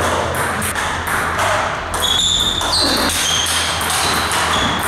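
Table tennis rally: the plastic ball pinging sharply off the rackets and the table, several quick hits each second.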